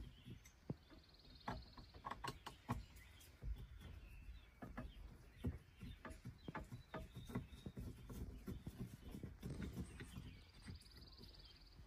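Faint, scattered clicks and taps of a Phillips screwdriver working the small screws out of an Eaton 9-speed shift knob.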